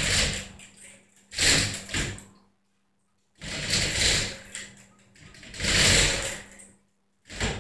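Steel chain of an overhead chain hoist rattling as it is pulled through by hand, in a run of short bursts with pauses between them.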